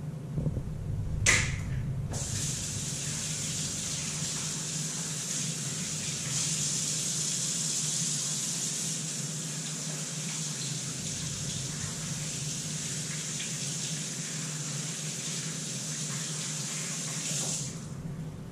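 Kitchen faucet running steadily into the sink for about sixteen seconds, with a sharp knock just before the water starts about a second in, and the flow cut off near the end.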